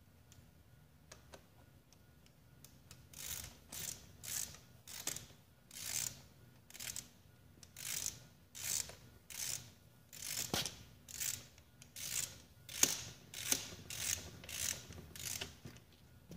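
Hand work on a mountain bike being reassembled: a regular run of short rasping mechanical strokes, about two a second, starting about three seconds in and stopping just before the end.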